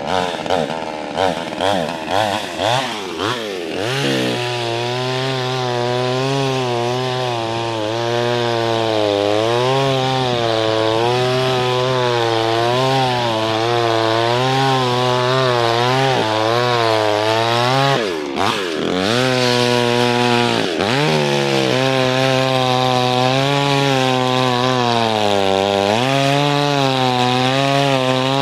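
Petrol chainsaw revved in a few quick blips, then running steadily under load as its bar cuts a slot through the ice for a fishing hole, the engine pitch wavering with the cut. About two-thirds of the way through the revs drop and pick up again twice.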